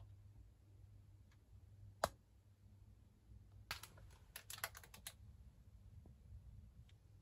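Quiet room with a low steady hum, one sharp click about two seconds in, then a quick run of about seven light clicks over a second and a half.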